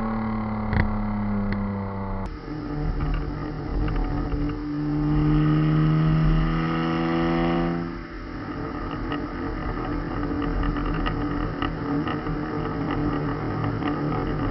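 BMW M52TU 2.8-litre straight-six through a straight-piped exhaust with no mufflers. Its note falls away at first; then the revs climb slowly for a few seconds and drop off sharply about eight seconds in, and it runs on at a lower note with small pops and crackles.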